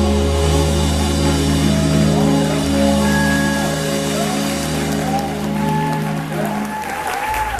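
Live band (keyboard, bass guitar, guitar and drums) holding a long sustained chord with a steady bass under a wavering melody line, the closing chord of a song. The chord cuts off near the end as clapping begins.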